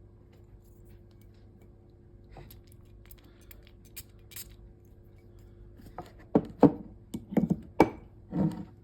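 Hands handling perfume packaging: a few light clicks and taps, then a quick run of sharp knocks and thuds near the end.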